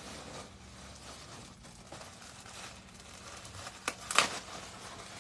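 Clothing packaging crinkling and rustling as garments are pulled out of a shipping box, with a sharp click just before four seconds in and a louder, brief crinkle just after it.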